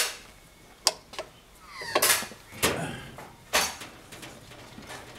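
About five sharp metallic clicks and clanks, unevenly spaced over the first four seconds, some ringing briefly, from hands at a Weber Q gas barbecue with its cast-iron breakfast plates.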